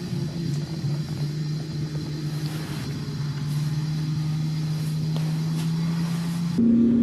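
An engine running steadily with a constant low hum. About six and a half seconds in, it changes abruptly to a louder, higher-pitched engine tone.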